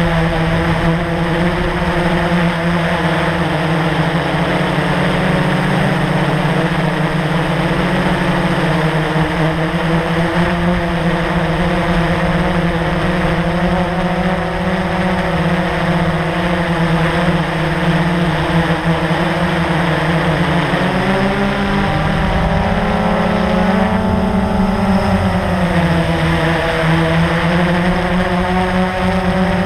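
Blade 350 QX quadcopter's electric motors and propellers running steadily, heard from the camera mounted on it. Past the two-thirds mark the pitch rises for a few seconds and then drops back as the motors speed up and slow down in a manoeuvre.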